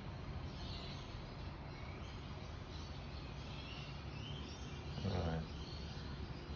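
Outdoor ambience: a steady low hum with birds chirping faintly, and one short, louder pitched sound about five seconds in.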